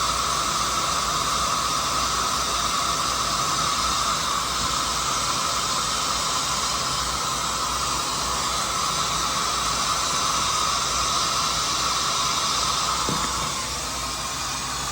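Steady hiss of high-bypass jet engine noise from airliners on the airfield, with a strong band around 1 kHz that eases near the end.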